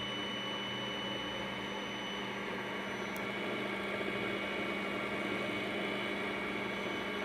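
Singer electric sewing machine's motor running at a steady speed to wind the bobbin, a constant multi-tone whir.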